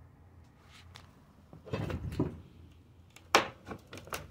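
Construction debris of plywood and metal studs being shifted in a dumpster: knocks and scrapes beginning about a second and a half in, with one sharp knock just past three seconds.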